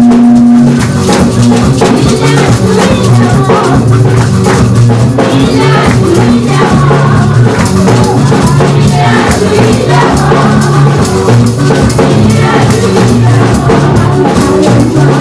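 Loud live church praise music: drums and shakers keep a steady beat while women sing into microphones.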